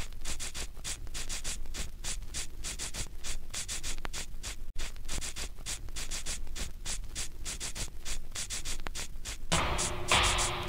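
A fast, even scratching rhythm of short hissy strokes, about four to five a second. Near the end a fuller music track comes in.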